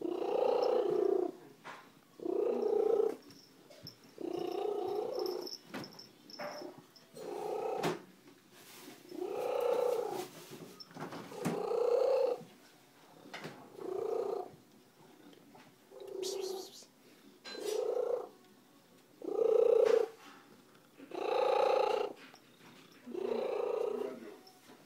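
Domestic cat purring very loudly close up, in strong pulses that come about every two seconds, each lasting about a second.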